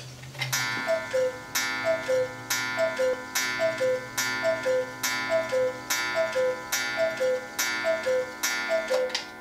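Black Forest cuckoo clock striking the hour: the bird calls its falling two-note cuckoo about ten times, a little under a second apart, with a sharp ringing strike on each call.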